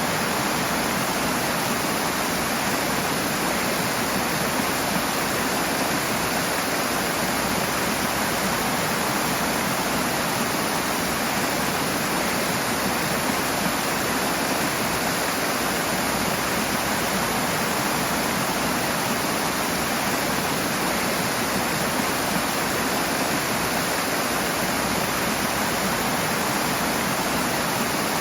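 Rushing water: a steady, full hiss of fast-flowing water, even throughout with no single splashes standing out.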